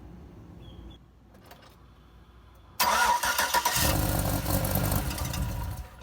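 A loud mechanical noise that starts suddenly almost three seconds in, fills out with heavy low rumble about a second later, and stops after about three seconds.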